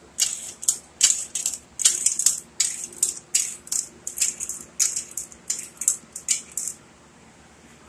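A quick, uneven series of short metallic scrapes and clicks, about two to three a second.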